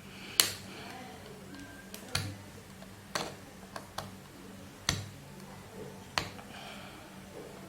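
Plastic pry tool clicking and snapping against a small plastic part on a Lenovo ThinkPad T460 laptop as it is levered off. About six sharp, irregularly spaced clicks, the first the loudest.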